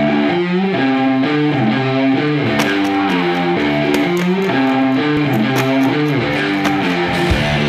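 Guitar music: a plucked melody of held notes over a steady beat.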